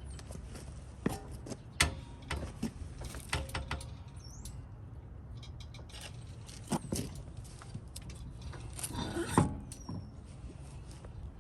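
Scattered clinks and knocks of hand tools and brake parts during a brake pad and rotor job, busiest about nine seconds in, with a few short high chirps.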